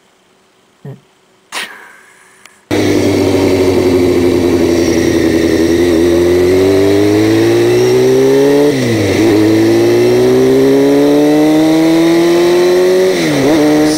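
A few faint small sounds, then about three seconds in a sportbike engine starts abruptly, already under way and accelerating. Its pitch climbs steadily, drops sharply at an upshift about nine seconds in, climbs again, and dips at a second upshift near the end, with wind noise underneath.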